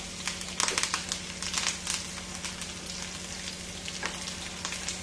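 Curry leaves, green chillies and ginger-garlic paste sizzling and crackling in hot oil in a nonstick pan while being stirred with a wooden spatula, with a flurry of pops about a second in.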